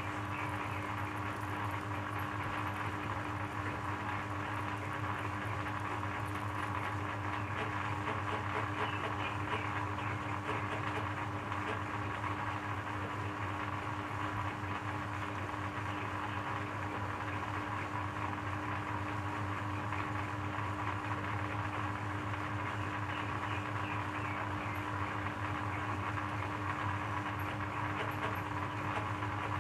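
Electric shredder running steadily, its motor giving a constant hum and whine, with a faint irregular crackle from the jelly being chewed through.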